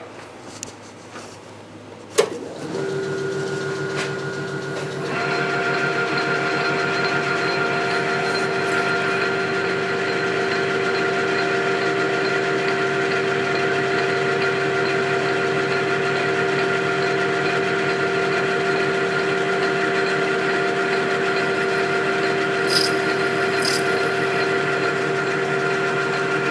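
Metal lathe switched on with a click about two seconds in, then running with a steady whine that grows louder and fuller a few seconds later.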